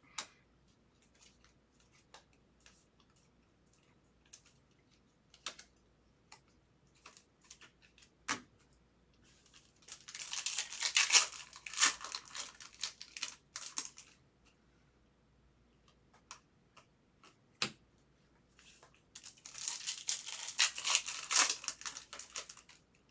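Trading-card pack wrappers torn open and crinkled, in two stretches: about ten seconds in and again near the end. Light clicks and taps of cards being handled come in between.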